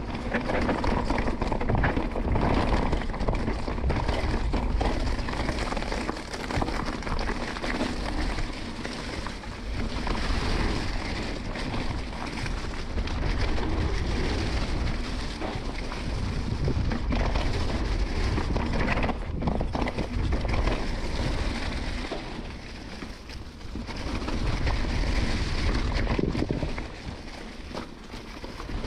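Mountain bike riding down a rocky, leaf-covered dirt trail: tyres running over dirt, leaves and rocks with many rattles and knocks from the bike, under a heavy wind rumble on the microphone.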